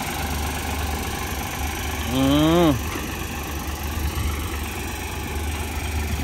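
Heavy truck's diesel engine idling steadily. About two seconds in, a short shouted voice call rises and then falls in pitch over it.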